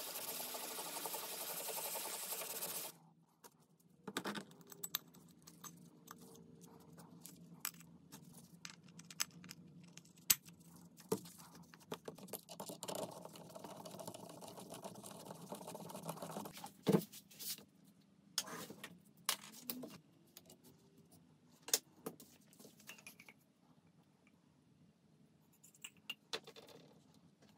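Small metal engine parts being handled, clinking and scraping against each other in scattered sharp clicks. It opens with about three seconds of a loud, steady rushing noise that stops abruptly.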